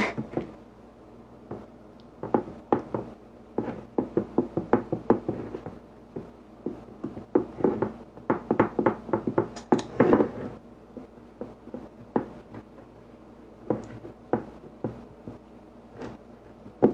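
A pie pan knocking and rattling on the countertop as hands press a buttery crumb crust into it: quick, irregular taps and knocks, thickest in the first half.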